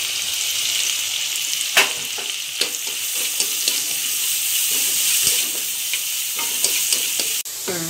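Sliced onions sizzling in hot oil in a non-stick pan, stirred with a wooden spatula that knocks and scrapes against the pan now and then.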